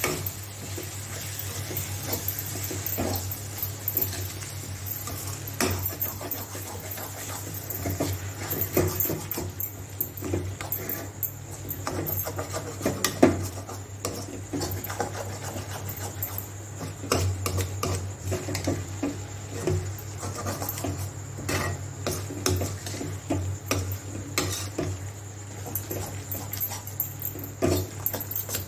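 Steel spatula stirring and scraping a thick vegetable gravy in a stainless steel kadai, with irregular clacks and knocks of metal on metal. A steady low hum runs underneath.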